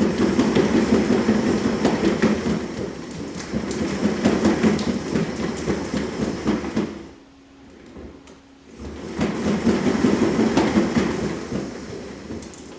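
A cat running on a large cat exercise wheel (One Fast Cat), the wheel turning with a steady rumbling clatter. The rumble dies down for a couple of seconds about seven seconds in, then picks up again as she runs on.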